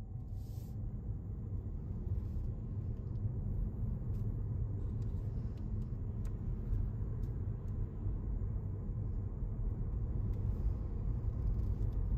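Low, steady road and drivetrain rumble inside the cabin of a Honda Vezel hybrid as it drives, growing slowly louder as the car picks up speed.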